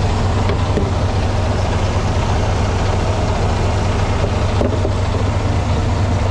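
Semi truck's diesel engine idling steadily, freshly jump-started after its batteries had run down to about 11 volts. A few light knocks sound over it.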